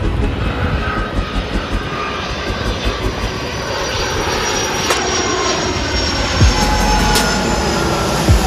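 United Boeing 757-200 jetliner arriving, its jet engines running with a loud rumbling roar and a whine that slowly falls in pitch as the plane passes.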